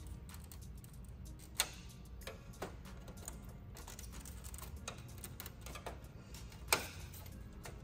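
Irregular clicks and taps of a steel screwdriver prying at the plastic retaining clips on the back of a Cadillac XTS grille to free the emblem, with two louder snaps, one about one and a half seconds in and one near the end, over a steady low hum.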